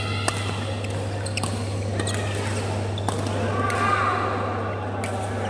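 Badminton rackets hitting a shuttlecock in a rally: a sharp smash just after the start, then several lighter hits, with shoes squeaking on the court floor around four seconds in. A steady low hum runs underneath.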